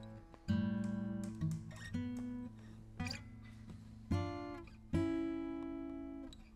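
Acoustic guitar playing a slow outro: single chords strummed about six times, each left to ring out and fade before the next.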